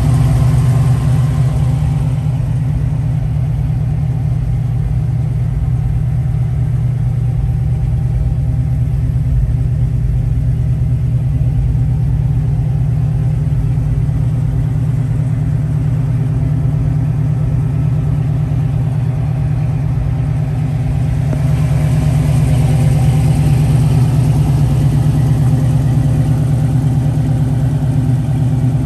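1961 Ford Ranchero's engine idling steadily. For most of the stretch it is heard from inside the cab, which dulls the higher sounds, and it turns brighter again near the end.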